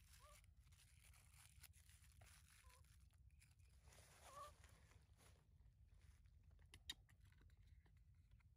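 Near silence outdoors, with a few faint short chirps and one sharp tick about seven seconds in.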